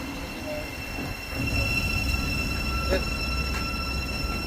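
Train running through the station: a low rumble under a steady high-pitched whine, with a second, lower whine coming in about a second and a half in and a couple of light clicks.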